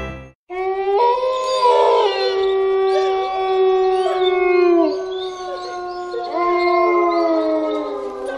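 Wolves howling in chorus: several long howls at different pitches overlap, some sliding down at their ends. They start about half a second in.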